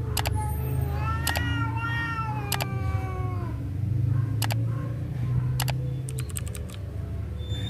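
Two cats in a hostile face-off: one long, wavering cat yowl lasting about three seconds that drops in pitch at its end, over a steady low growl, with a few sharp clicks.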